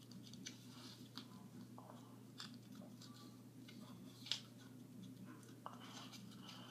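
Faint small taps and clicks of fingers handling and typing on an iPhone, with one sharper click about four seconds in, over a steady low hum.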